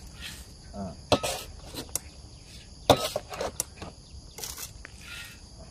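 Shovel scraping into soil and tipping it around a tree's base: a series of short scrapes and knocks at irregular intervals, with the loudest knock about three seconds in. A steady chorus of insects runs underneath.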